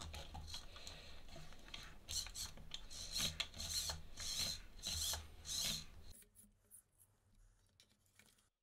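Hands handling and fitting together 3D-printed plastic robot-arm parts and small servos: rubbing and scraping with many sharp clicks. It stops about six seconds in, leaving only a few faint ticks.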